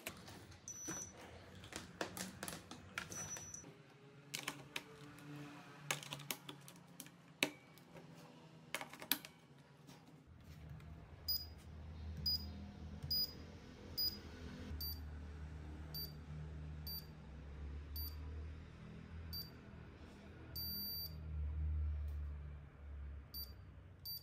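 Plastic clicks as 18650 lithium-ion cells are pushed into a LiitoKala four-bay battery charger's slots, then a string of short high beeps from the charger, roughly one a second, as its MODE and CURRENT buttons are pressed to set it into test mode, with one longer beep near the end. A low hum sets in about halfway.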